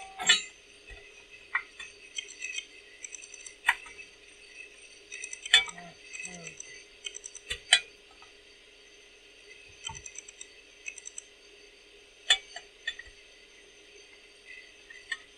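Irregular sharp metallic clicks and clinks as the metal body of a Koso digital speedometer is pushed and worked into a freshly filed hole in a metal dash plate, knocking and scraping on the hole's edge during a test fit.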